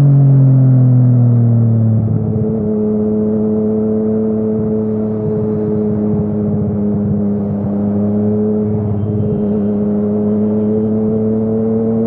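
Yamaha MT-09's inline-three engine through an Akrapovic exhaust while riding. The revs fall for about two seconds, then hold nearly steady at a cruise, rising slightly near the end.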